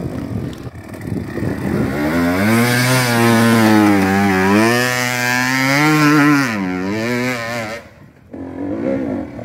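Off-road vehicle engine revving hard, its pitch rising and falling several times, then dropping away about eight seconds in.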